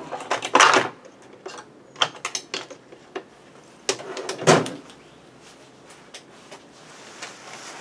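Hand tools being handled: scattered clicks and knocks of metal and plastic, with a louder clatter about half a second in and again about four and a half seconds in.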